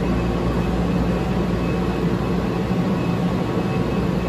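Steady low mechanical hum and rumble with a few faint steady tones running through it, unchanging throughout.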